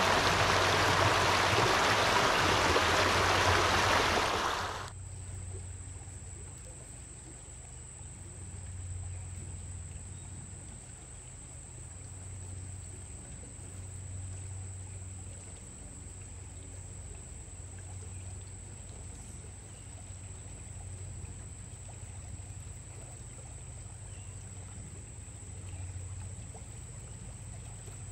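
Rushing water of a spring-fed stream, loud and steady, that cuts off abruptly about five seconds in. What follows is a much quieter background with a faint low hum and a thin, steady high-pitched whine.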